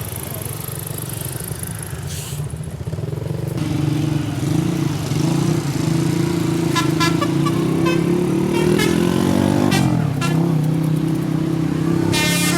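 Heavy vehicle engine and road noise, rising about four seconds in to a steady low drone that slides down in pitch near ten seconds. Near the end a bus's multi-tone telolet horn starts playing a stepped melody.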